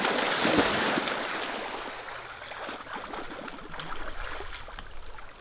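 Big splash of a person plunging into a lake. It starts suddenly and is loudest for about the first second. The churning water then dies down over the next couple of seconds into softer sloshing and trickling.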